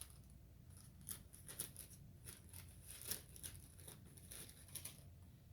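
Faint crinkling and clicking of a plastic pouch of biscuit mix being cut open, in short, scattered snips.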